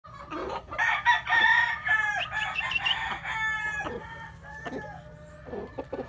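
Gamecock roosters crowing, several calls overlapping, loudest in the first half.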